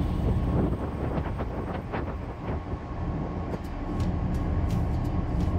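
Steady low rumble of a boat's engine running, heard from on board, with short clicks and wind noise on top.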